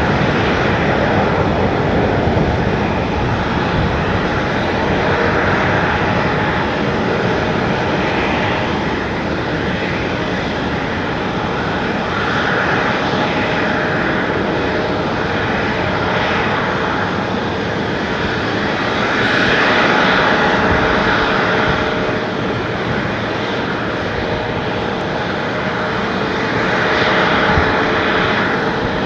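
Airliner engines at an airport: a loud, continuous roar that swells a few times, with faint steady whining tones running through it.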